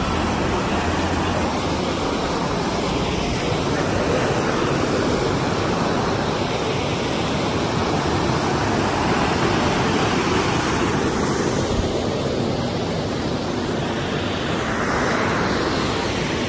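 Johnston Creek rushing over the rocks of the canyon floor: a steady, even rush of fast water.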